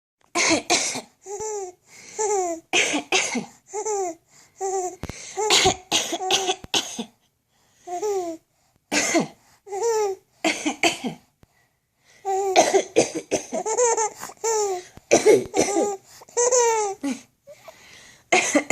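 An adult coughing in short fits again and again, and a young child answering each cough with high-pitched giggles that rise and fall in pitch, back and forth many times, with a brief pause a little past the middle.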